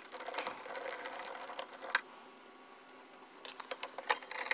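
Phillips screwdriver turning out the screws that hold an electric meat slicer's blade: a run of small metallic scraping clicks, a sharp click about two seconds in, then quieter, with more clicks near the end.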